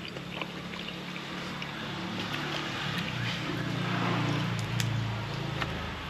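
A motor vehicle's engine running nearby, its low hum growing louder to a peak about four seconds in and then easing off as it passes, with faint clicks of chewing.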